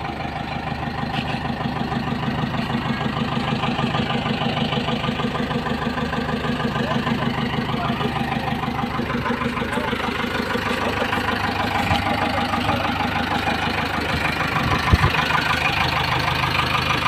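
Diesel engine of a JCB backhoe loader running steadily with an even low beat. A single sharp knock sounds near the end.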